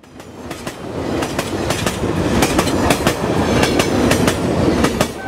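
Loud rumbling clatter with many irregular sharp clicks, swelling up over the first second.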